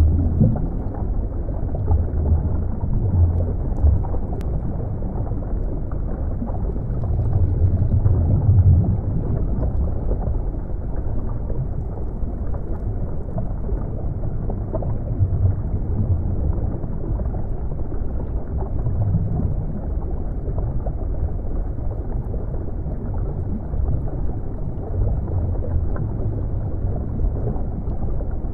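Underwater ambience: a steady, dull rumble of water with no high sounds, swelling slowly now and then, loudest about eight seconds in.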